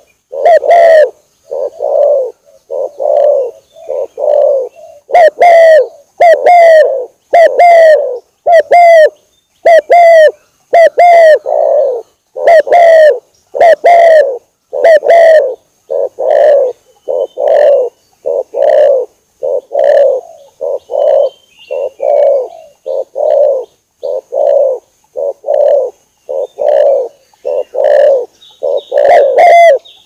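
Spotted dove cooing: a loud, steady run of repeated low coos, about three every two seconds, played as a lure call to draw doves in.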